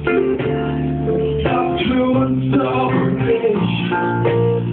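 A voice singing a slow song over guitar, holding long notes.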